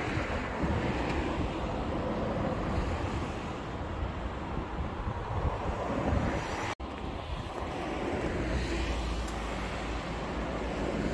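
Wind buffeting the microphone outdoors, an uneven rushing with a heavier low rumble in the last few seconds. The sound cuts out for an instant about seven seconds in.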